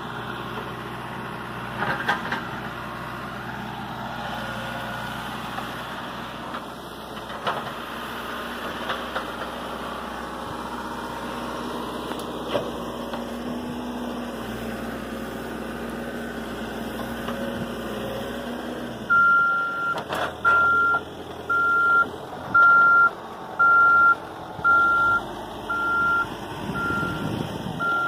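Caterpillar backhoe loader's diesel engine running steadily while the machine works, with a few knocks. About two-thirds of the way in, its reversing alarm starts beeping, roughly one beep a second.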